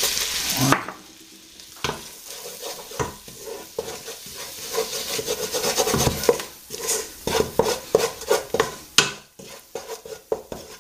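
Wooden spoon stirring flour into melted butter in a saucepan to make a roux: irregular scrapes and knocks of the spoon against the pan. A steady sizzle at the start stops abruptly under a second in.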